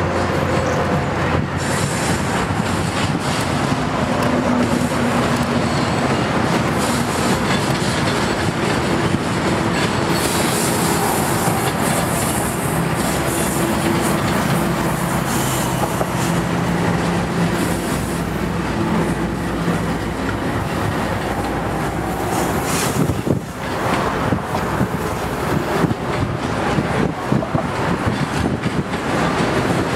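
CSX freight train passing: the GE diesel locomotives' engines drone with steady tones as they go by, then the double-stack intermodal well cars roll past with wheels clattering over the rail joints.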